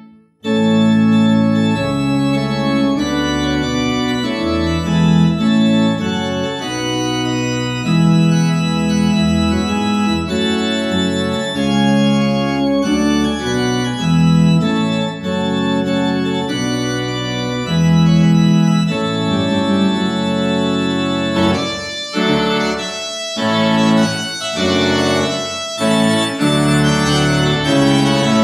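Church organ played from a two-manual console: slow, sustained full chords. The music starts right after a moment of silence at the very beginning and breaks off briefly a little over twenty seconds in, then goes on with shorter notes.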